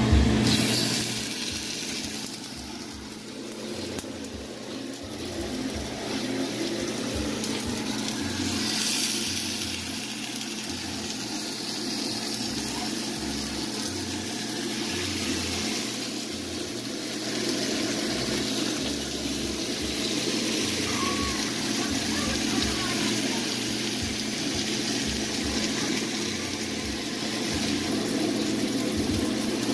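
Salmon fillets sizzling in hot oil in a cast-iron pan, the sizzle flaring up as fillets are laid in.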